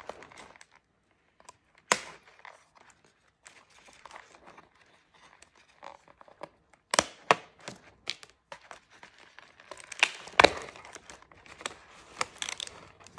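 Doll packaging being cut and pulled apart: scissors snipping the plastic ties, with crinkling and rustling of plastic and cardboard. Scattered sharp clicks; the two loudest come about ten seconds in.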